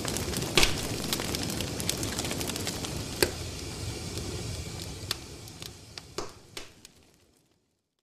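Wood fire burning in a metal fire pit: a steady rushing crackle with sharp, scattered pops from the burning logs, fading out near the end.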